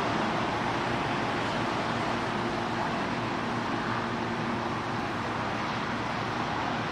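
Steady wash of distant road traffic noise, even and unbroken, with a faint low hum under it.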